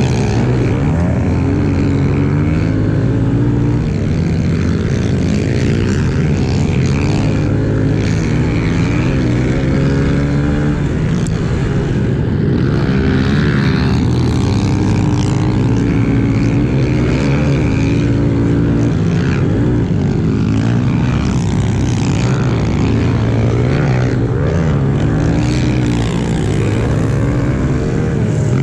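Honda CRF110F pit bike's small single-cylinder four-stroke engine being ridden hard, its pitch climbing and dropping again and again as the throttle is opened and closed and the gears change, with wind rush on the microphone.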